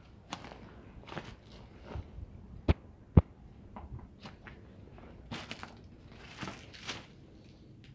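Footsteps scuffing and crunching on gravelly dirt and loose stones, irregular, with two sharp knocks about half a second apart near the middle, louder than the steps.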